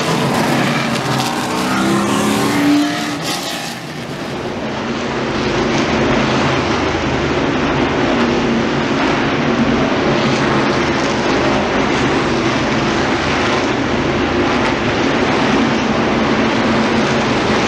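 V8 car engine, its pitch rising and falling as it revs for the first few seconds. From about four seconds in, the engine runs steadily and loudly at one pitch.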